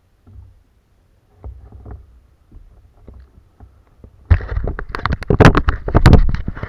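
Handling noise close to the microphone on a kayak: a few light knocks, then from about four seconds in a loud, dense run of knocks and rubbing as the camera is turned round.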